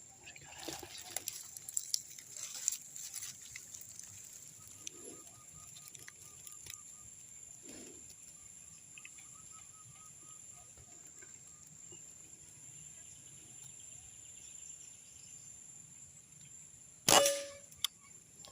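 A single sharp air rifle shot near the end, over soft handling rustles, a steady high insect whine and a bird's quick runs of repeated notes.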